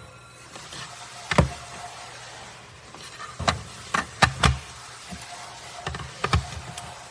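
A handful of sharp knocks and taps, about six spread out, the loudest a second or so in and a close cluster midway.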